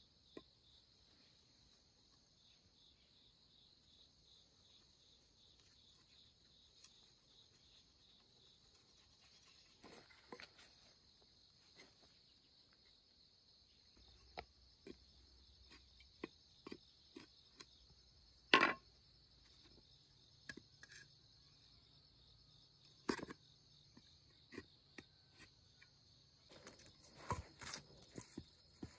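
Faint, steady high-pitched drone of insects, with scattered light clicks and knocks; a sharper knock comes about two-thirds of the way through and another a few seconds later.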